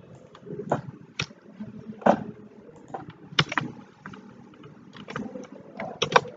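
Irregular keystrokes on a computer keyboard, a single sharp click every second or so with a pair of quick ones near the end, over a faint low hum.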